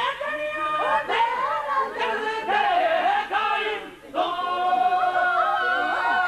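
A group of voices singing a devotional mawlid song together, with a short break about four seconds in.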